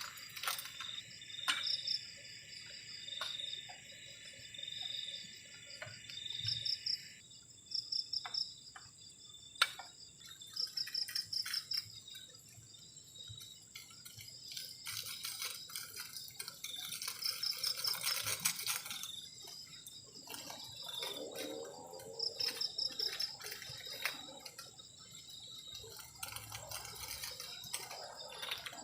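Crickets chirping at night in short, repeated high trills about every second or two, over a steady high-pitched insect drone, with a few sharp clicks.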